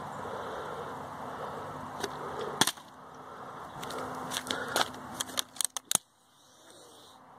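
Plastic water bottle clacking down hard on concrete about two and a half seconds in, after a lighter tap just before it. Near the end comes a quick run of smaller sharp clicks and knocks.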